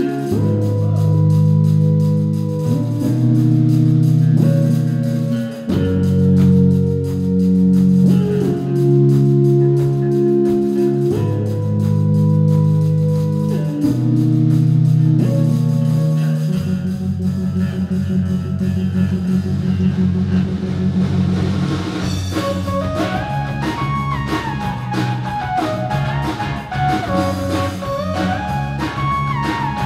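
Live band playing an instrumental passage: guitar and bass chords held and changed every two to three seconds. About halfway through, a busier driving rhythm with drums comes in, and in the last third a higher melody line climbs and falls.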